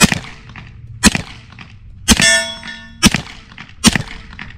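Suppressed pistol fired five times, about one shot a second, each shot followed by the clang of the bullet striking a steel target plate. The third hit rings the plate longest.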